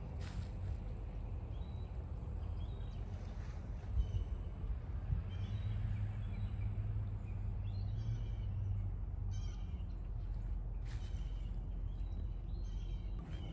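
Birds calling now and then, in short series of chirpy notes, over a low steady outdoor rumble.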